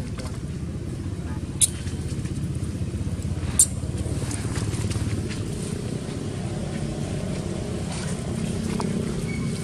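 A motor vehicle engine running steadily with a low, evenly pulsing rumble, with two sharp clicks, one about one and a half seconds in and one about three and a half seconds in.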